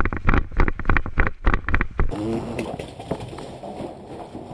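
Running footsteps and jostling gear picked up by a head-mounted camera: a fast, uneven patter of heavy thuds for about two seconds. The sound then drops to a quieter shuffle of slower movement.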